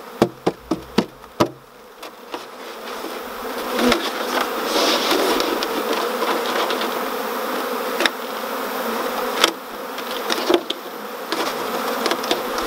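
Honeybee colony buzzing as the last bees are tapped out of a polystyrene nuc box into the hive: a quick run of sharp taps on the box in the first second and a half. Then the buzzing swells and holds steady, with a few more knocks later on.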